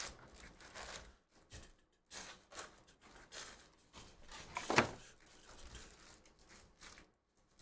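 Foil trading-card packs rustling and a cardboard hobby box being handled as the packs are lifted out, in short irregular rustles and soft knocks, with one louder knock about five seconds in.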